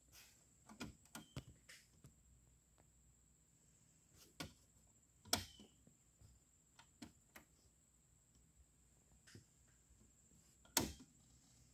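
Technics RS-T22 dual cassette deck's transport buttons clicking as they are pressed: scattered light mechanical clicks, with louder clacks about five seconds in and near the end, the last as a cassette door is handled.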